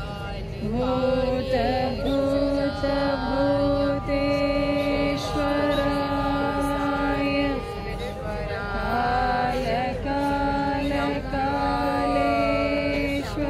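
A mantra chanted in song, long notes held on a steady pitch in phrases a few seconds long, with brief pauses between them.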